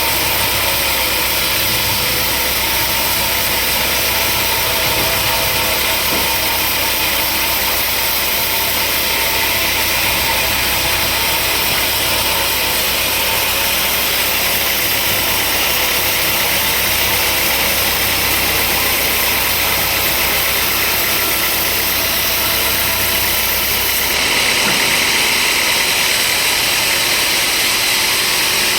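Sawmill machinery running with a steady mechanical drone. About 24 seconds in, the low hum drops away and a brighter, hissier noise takes over.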